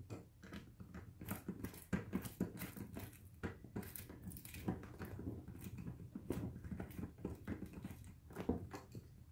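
Hand screwdriver turning a screw through a plastic face-mask clip into a football helmet shell: a run of small irregular clicks and scrapes.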